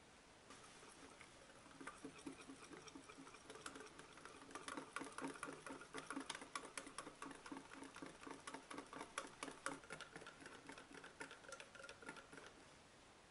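Small wire whisk beating runny rice-flour batter in a glass bowl to work in the oil: a quick, even run of light wire-on-glass clicks with wet splashing, building over the first few seconds and stopping near the end.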